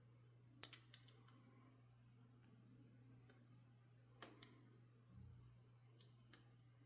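Faint, scattered sharp clicks of a small hand tool against the plastic case of a micro servo, about nine in all, as the circuit board and motor are pried at, over a low steady hum.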